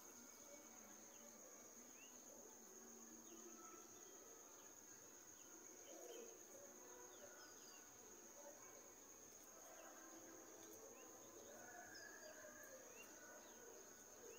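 Near silence: faint outdoor ambience with a steady high-pitched insect drone, like crickets, and scattered faint short chirps.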